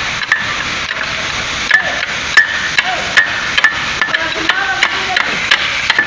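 A hammer striking a steel bar, sharp metal-on-metal blows with a short ring, a dozen or so at an uneven pace, while a concrete pump's S-valve (rock valve) is being knocked apart. A steady hiss runs underneath.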